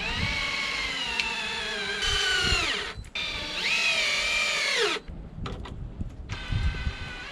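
Cordless power drill running in three trigger pulls, the first two each about two to three seconds long. Its whine sags in pitch just before the first two stop.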